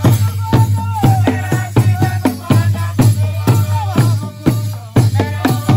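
Traditional Rwandan dance music: drums beaten in a fast, steady beat of about three strokes a second, with voices singing over them and a rattling shake on the beat.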